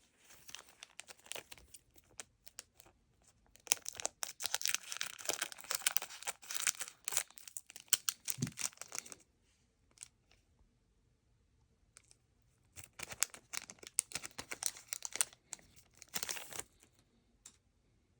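Foil booster-pack wrappers being torn open and crinkled by hand, in two spells of rustling with a pause of a few seconds between them.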